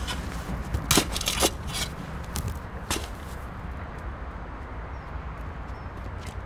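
Spade chopping into turf and soil: about half a dozen sharp strikes in the first three seconds, then only a steady low rumble in the background.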